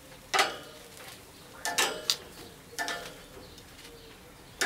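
Metal cooking utensils clinking against metal cookware: about five irregular strikes, some leaving a short ringing tone.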